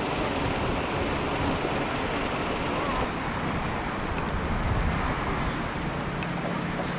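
Steady outdoor traffic noise, with a slight change in character about three seconds in.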